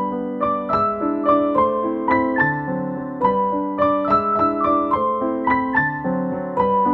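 Background piano music: a gentle melody of separate notes, several a second, over sustained lower notes.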